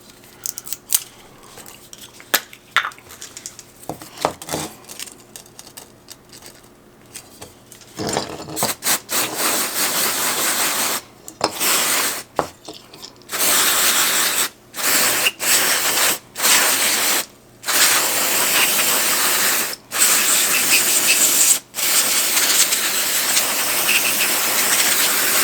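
Aerosol can of Chemtronics electronics contact cleaner spraying onto ignition coils to wash off carbon, in long hissing bursts with short breaks. The spraying starts about eight seconds in, after a few light clicks and knocks of handling.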